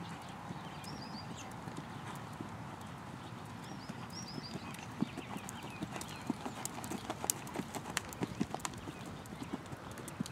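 A horse trotting on sandy arena footing: soft hoofbeats with irregular sharp clicks that come louder and more often in the second half as the horse comes near.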